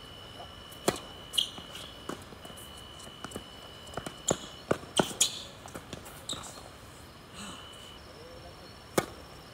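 Tennis balls struck by racquets and bouncing on a hard court during a point: a sharp serve strike about a second in, a run of quicker pops and bounces in the middle as the rally goes on, and another serve strike near the end. A thin steady high tone runs under the first half.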